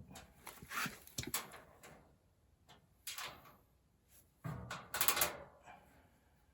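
Sheet-metal ductwork being handled and positioned: three short clusters of scrapes and knocks, the loudest about five seconds in.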